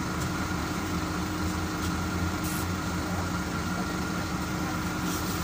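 Scania CN270UB city bus's diesel engine idling steadily while the bus stands still, heard from inside the passenger cabin. A faint, steady high whine runs over the low engine hum.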